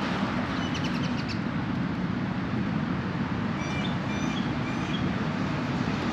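Steady outdoor background rumble with a few faint bird chirps, a short twitter about a second in and a run of about four chirps around four seconds in.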